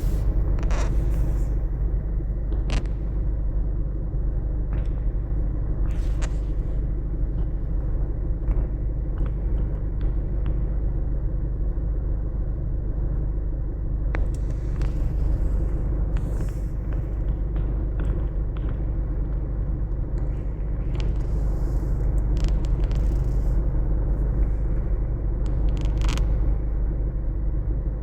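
A motor vehicle's engine running steadily, a continuous low rumble, with a few faint clicks scattered through.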